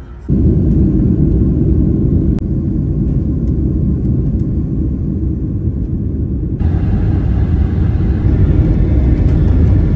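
Jet airliner cabin noise at a window seat over the wing: a loud, steady low rumble of the engines and rushing air while on the runway and in low flight. The sound changes about six and a half seconds in, turning brighter and hissier.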